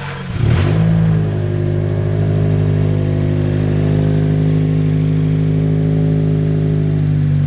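Nissan Silvia S14's SR20 four-cylinder engine starting from cold: it catches about half a second in, flares up briefly, then settles into a steady idle. The start is a test after new spark plugs and a refitted coil pack loom in the hunt for a misfire.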